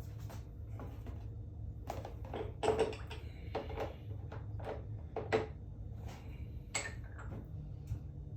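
Small metal transmission parts being handled on a workbench: scattered light clicks and knocks, a few louder ones about a third of the way in, past the middle and near the end, as the pistons are dipped in oil.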